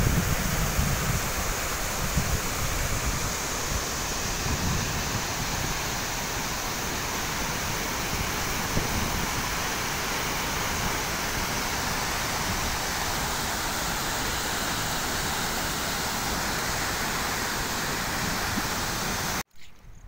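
Steady rushing noise of a large waterfall in spate, even and unbroken, with wind buffeting the microphone in the first second or two; it cuts off abruptly near the end.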